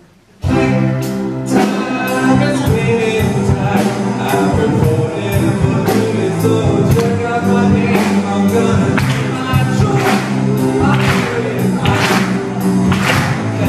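Music with a steady beat of about two a second starts abruptly about half a second in.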